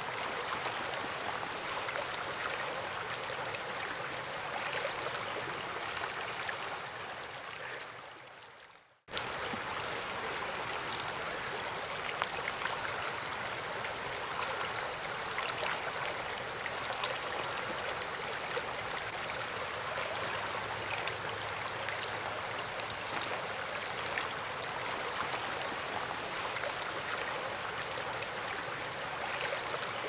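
Shallow mountain creek rippling over rocks: a steady rush of running water. It fades away about eight seconds in and cuts back in abruptly a second later.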